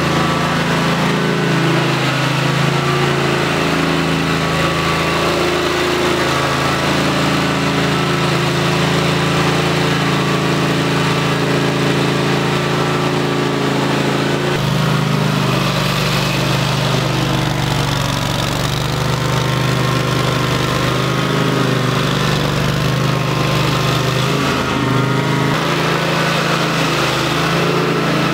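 Propane-fuelled WerkMaster Titan XT floor grinder, its 21 HP Kawasaki engine running steadily under load as the diamond tooling grinds cut-back carpet glue off concrete. The engine's low tone shifts about halfway through.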